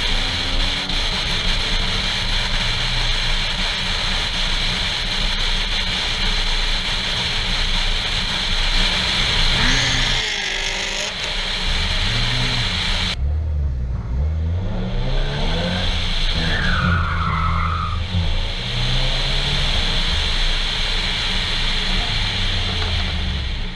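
Car engine running under way with steady wind and road noise on a hood-mounted microphone. About halfway through the sound changes suddenly, and the engine note rises several times as the car accelerates.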